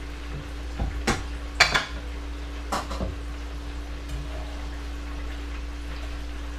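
Dishes and a kitchen knife being handled on a counter while a meal is plated: a handful of clinks and knocks in the first three seconds, the loudest about a second and a half in, over a steady low hum.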